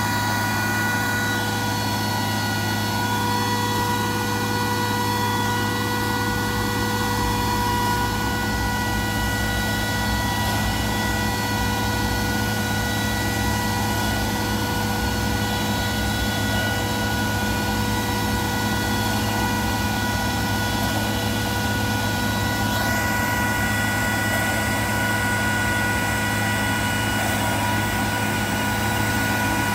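Parked Boeing 737 cargo jet and its ground support equipment running on stand: a steady high whine over a low engine hum.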